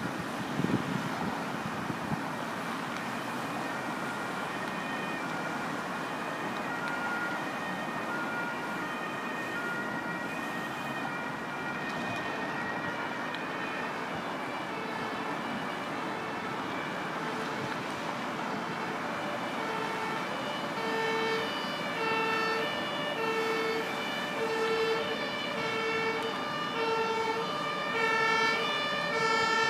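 Emergency vehicle siren alternating between two tones, faint at first and growing steadily louder as it approaches, over steady road traffic.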